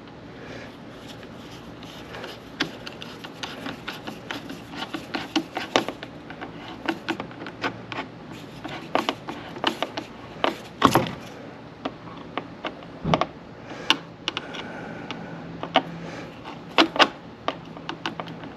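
Screwdriver tightening a hose clamp on a car's air intake hose: many short, irregular metal clicks and scrapes as the tool turns the clamp screw.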